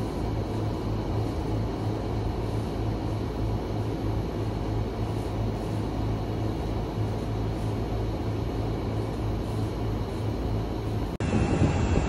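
Steady low drone of rooftop air-conditioning outdoor units running, a constant hum with fan noise over it. About 11 seconds in it cuts off abruptly and a louder, lower rumble takes over.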